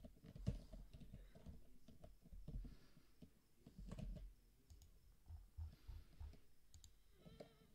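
Faint, scattered clicks of a computer mouse and keyboard keys being pressed, a few separate clicks over several seconds.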